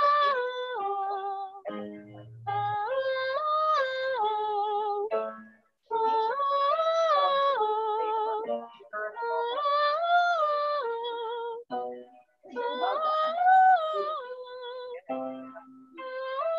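A girl singing a vocal warm-up on a vowel: a short phrase that steps up the scale and back down, repeated about five times with short pauses, each time starting a little higher.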